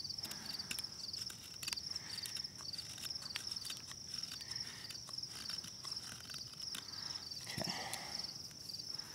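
Knife blade scraping resinous fatwood into shavings: a run of short, irregular scratchy scrapes. Behind them, insects chirr steadily.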